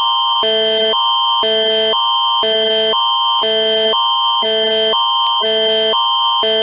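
Canadian Alerting Attention Signal of an emergency broadcast alert: a loud electronic tone that switches between a higher and a lower chord every half second over a steady high tone.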